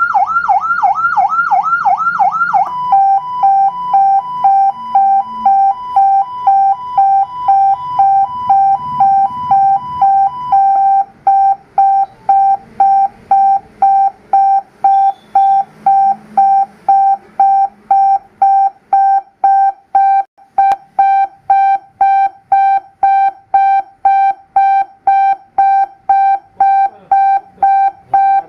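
The 200-watt PA siren of an ambulance light bar runs through its tones. It opens with a fast up-and-down yelp, switches about 3 seconds in to alternating two-pitch beeps, and from about 10 seconds in gives a single-pitch beep repeated about twice a second.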